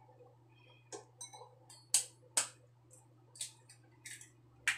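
Raw eggs being tapped and cracked against a ceramic bowl: several sharp clicks and taps at irregular intervals.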